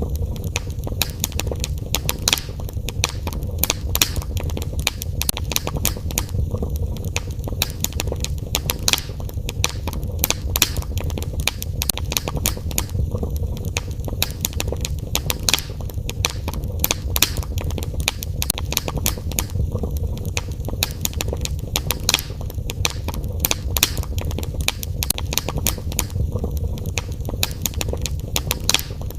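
Wood fire burning in a fireplace, crackling and popping irregularly over a low steady rumble of the flames.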